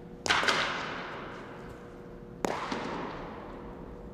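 Two sharp smacks of baseballs into leather gloves, about two seconds apart, each ringing on in a long echo through the large indoor practice hall.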